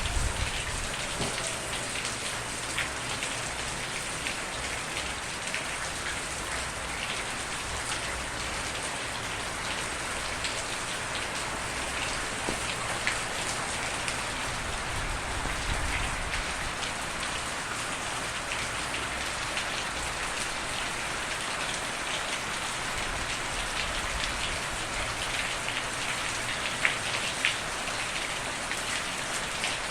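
Steady rain falling, a continuous hiss with scattered individual drops ticking, without thunder.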